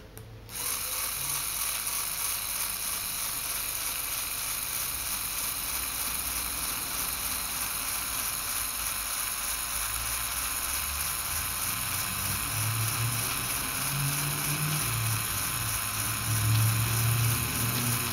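LEGO Technic gearbox driven by an electric LEGO motor, starting about half a second in and running with a steady whir of motor and meshing plastic gears. A deeper drone comes and goes in the second half, loudest near the end.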